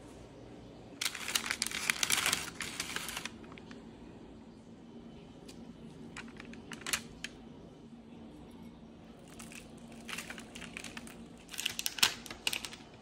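Parchment paper crinkling and rustling as it is handled under chocolate-dipped strawberries, in two bursts: one about a second in lasting two seconds, and one near the end, with a few light clicks and taps between.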